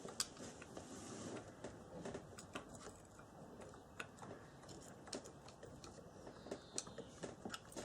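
Faint, irregular clicks and taps of a screwdriver working metal as a quad bike's starter motor is prised out of its housing.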